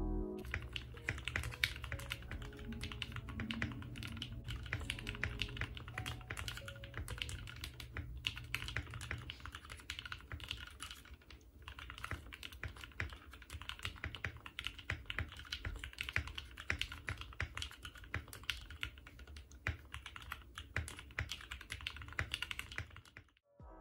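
Typing test on a freshly built Graystudio Think 6.5 V2 mechanical keyboard with 8008 Ink switches, an FR4 plate and PBT keycaps: a steady, dense stream of key clacks with brief pauses about eight and eleven seconds in.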